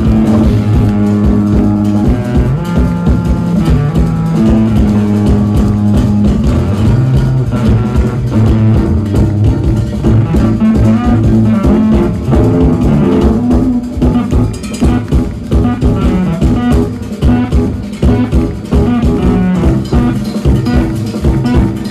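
Jazz-fusion band playing live on electric bass, drums, keyboards and electric guitar, with a strong bass line over a busy drum groove.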